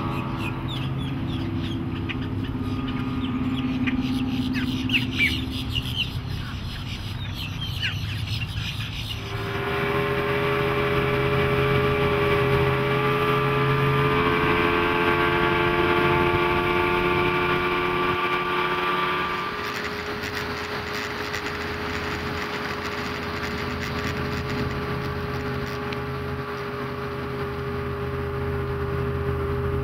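Mercury 200 HP Saltwater Series EFI outboard running at speed with a steady engine tone over rushing water and wind. The tone shifts and grows louder about nine seconds in, then eases slightly about twenty seconds in.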